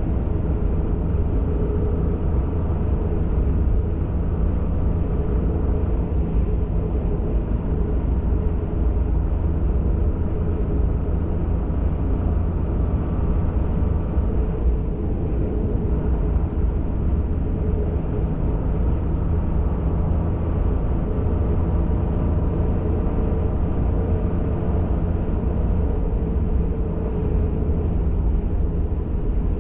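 Steady engine and tyre rumble of an off-road pickup truck cruising, heard from inside the cab.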